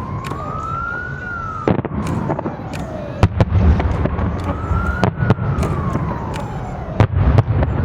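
Fireworks going off, with repeated sharp bangs over a steady low rumble. Through it a siren wails, slowly rising and falling about every four seconds.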